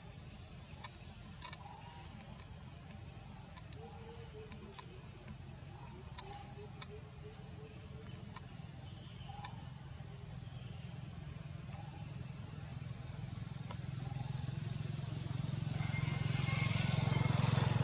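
A steady, high-pitched drone of insects with scattered faint clicks. From about three-quarters of the way in, a low motor-vehicle engine grows steadily louder as it approaches.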